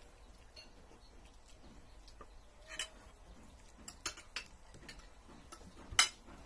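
Spoon and fork clinking against ceramic plates while eating: a few scattered sharp clinks, the loudest near the end.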